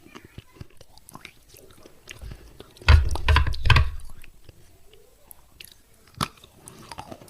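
A person biting into and chewing a piece of wet clay pot close to the microphone: a loud crunch about three seconds in that lasts about a second, then a single sharp snap about six seconds in, with small clicks around them.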